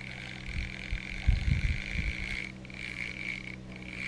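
A steady high-pitched trilling chorus of frogs, with a cluster of dull low thumps in the middle, the loudest sounds here.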